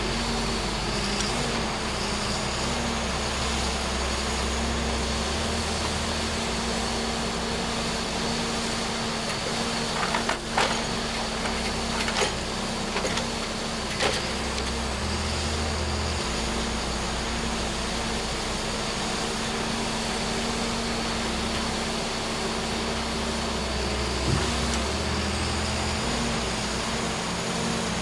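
Heavy machine's engine running steadily, with a few sharp knocks from the work about 10, 12, 14 and 24 seconds in.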